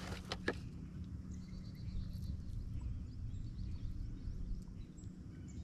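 Quiet outdoor background with a steady low rumble, two sharp clicks just after the start and a faint high ticking for a second or so in the middle.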